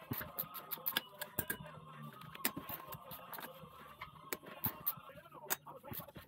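Irregular sharp clicks and light knocks of hand tools and metal compressor parts being handled, over a faint steady hum.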